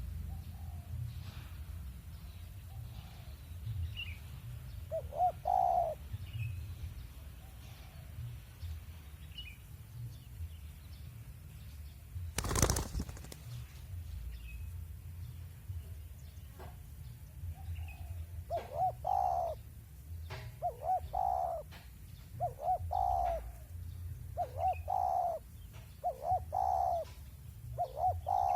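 Spotted doves cooing: one coo about five seconds in, then a run of repeated coos every second or two through the last third. A single sharp knock comes near the middle, with faint high chirps and a steady low rumble in the background.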